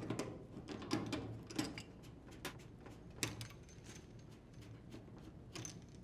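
Faint, irregular clicks and knocks of hot and cold water supply hoses being unthreaded and pulled off a washer's inlet valves, with the strongest knocks about a second apart near the start and a few more later.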